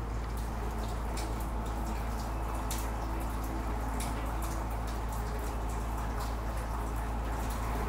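Scattered light drips and ticks of water over a steady low rumble.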